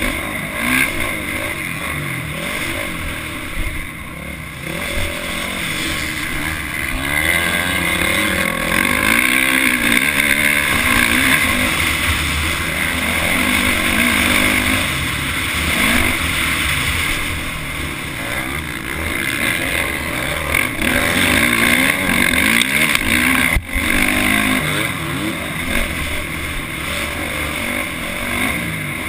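Dirt bike engine heard close up from the bike itself, revving up and down through the throttle over the track, with wind noise. The sound drops out briefly about two-thirds through.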